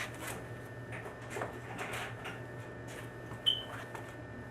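Wire fitting brush scrubbing the inside of a copper tee fitting's ends before soldering: irregular short scratching strokes with a few clicks, and a brief high squeak about three and a half seconds in, over a steady low hum.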